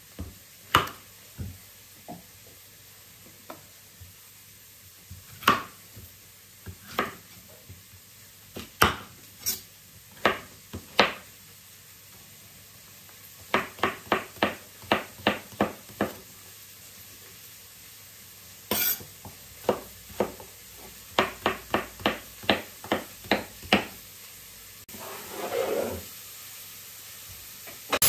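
A chef's knife cutting a courgette on a marble board, each stroke ending in a sharp click of the blade on the stone. Single cuts at first, then two runs of quick, even chopping, a few strokes a second.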